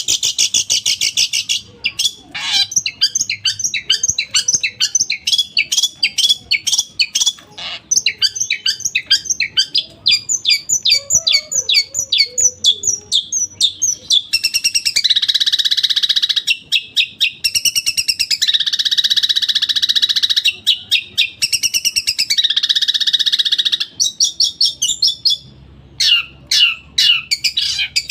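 Long-tailed shrike (cendet) singing loudly: fast strings of sharp, repeated chattering notes alternating with several longer harsh, buzzy rasping stretches.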